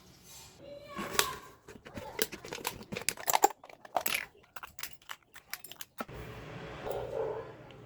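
Quick irregular clicks, taps and crinkles of hands handling thin aluminium can pieces and small tools. Near the end a low steady hum comes in.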